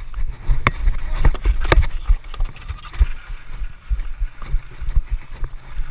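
Low rumble of wind and movement on a body-worn action camera as the wearer moves around an outdoor dek hockey rink, with sharp clacks and knocks of sticks and ball on the plastic court, the loudest about a second in and again near two seconds.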